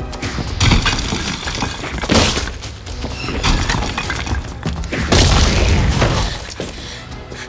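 Film fight sound effects: heavy bodies slamming into walls and smashing through them, with cracking and crumbling debris. Big crashes come about a second in, a couple of seconds in, and around five seconds in, over film score music.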